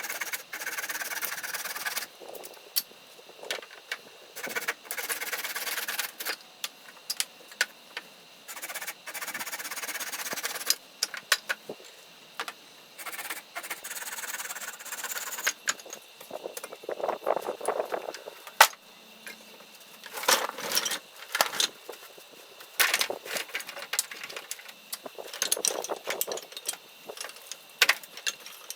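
A handsaw rasping through a dry wooden branch in a few long strokes with pauses between them. These are followed by scattered sharp wooden knocks and clicks.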